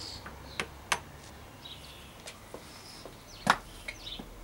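Sharp metallic clicks and taps as a rusted pawl is pressed out of a Sturmey-Archer AW three-speed hub's planet cage on a vise. There are two clicks early on and the loudest about three and a half seconds in, as the pawl breaks free.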